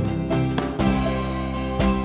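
Background music led by plucked strings, with regular note attacks.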